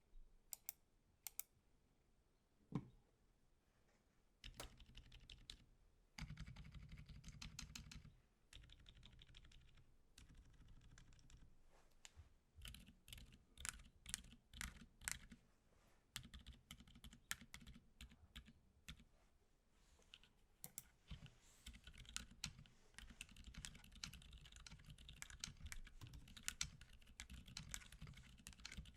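Typing on a mechanical keyboard with lubed Gazzew Boba U4 silent tactile switches, an aluminium case and PBT keycaps: quiet, muted keystrokes. A few single presses come first, then long runs of fast typing from about four seconds in.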